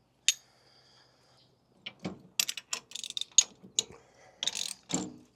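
A metal clink with a short ring, then a socket ratchet wrench clicking in quick bursts as nuts on a Cat 1 quick hitch are tightened.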